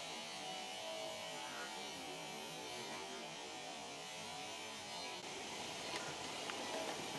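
Steady electrical hum with hiss. A few faint clicks near the end as the industrial sewing machine head is swung back upright on its table.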